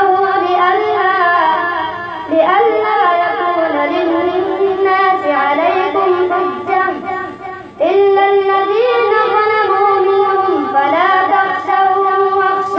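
A boy's voice chanting Quran recitation in a slow, melodic style, holding long wavering notes through each phrase. Two short breath breaks come about two seconds in and just before eight seconds.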